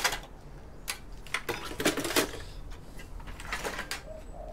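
Irregular clatter and knocks of metal computer parts being handled while an old desktop PC is taken apart by hand, busiest about two seconds in, with a few more knocks near the end.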